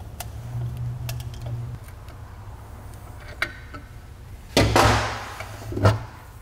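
A few light tool clicks, then about four and a half seconds in a loud metallic scrape and clatter, and a clunk a second later, as the cast-aluminium Jackson Racing supercharger assembly is shifted across the workbench.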